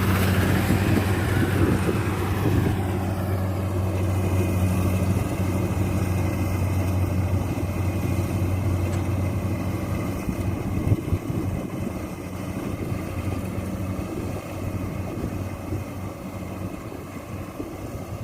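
Rice combine harvester engine running with a steady low hum and a higher whine that falls in pitch over the first few seconds, growing gradually quieter over the second half.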